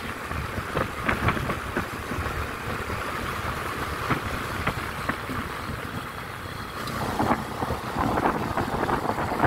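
Wind buffeting the microphone over a low, steady rumble, as of riding in a moving vehicle, with scattered short knocks; the noise grows louder from about seven seconds in.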